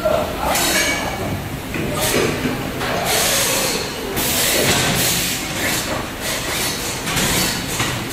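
Assembly-line work on electric hub motors: hand-held power screwdrivers run in repeated short hissing, whirring bursts, one longer about three seconds in, over a steady low factory hum.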